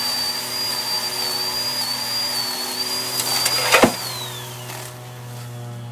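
A power saw cutting through a tree branch: a steady high motor whine over the cutting noise, with crackling and a sharp snap a little before four seconds in as the branch gives way. The whine then falls in pitch as the motor spins down.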